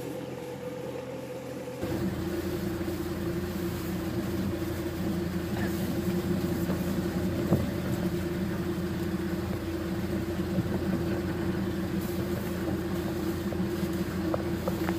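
Small engine of a power sprayer running steadily at a constant pitch, as it pressurises the spray solution fed to a hose-line wand. It becomes louder about two seconds in.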